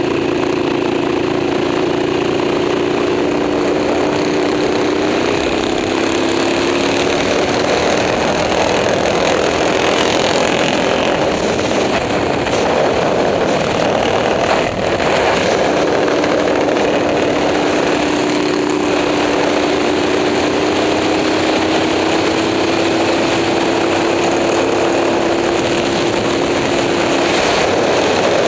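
Moto Morini 350 V-twin racing motorcycle engine running hard at fairly steady revs, its pitch rising slowly as it pulls in a held gear, over a loud steady rush of noise.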